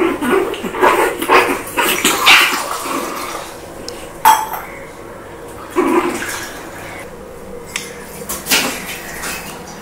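Adult shih tzu and a young shih tzu puppy playing and mouthing: irregular close clicks, scuffs and rustles, busiest in the first few seconds, with one sharp click about four seconds in.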